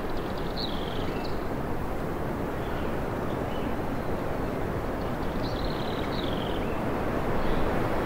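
Steady wind rushing through forest trees. A few short, faint, high bird chirps come near the start and again past the middle.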